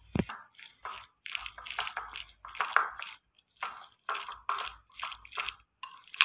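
A spoon stirring a chicken, cabbage and mayonnaise sandwich stuffing in a ceramic plate: a run of uneven scraping, squelching strokes, about one or two a second, with a thump right at the start.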